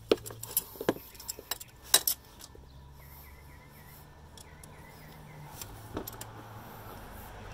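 Hand tools clinking and knocking against metal engine parts: a run of irregular sharp metallic clicks, loudest about two seconds in, then quieter, with one more knock near six seconds.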